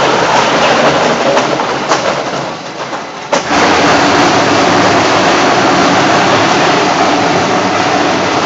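Weima Spider 1000 industrial shredder running and shredding a bathtub: a loud, continuous mechanical shredding noise. It dips for a moment, then comes back with a steady hum underneath about three seconds in.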